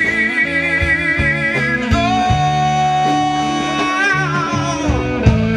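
Live band playing a slow soul ballad between sung lines, with long held notes over a steady bass.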